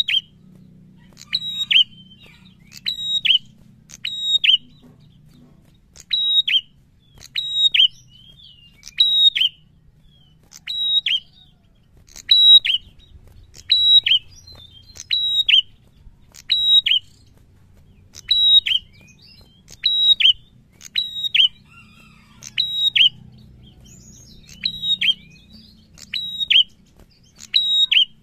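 A caged prenjak songbird calls over and over, about one sharp call every second and a half. Each call is a high note followed by a quick downward sweep.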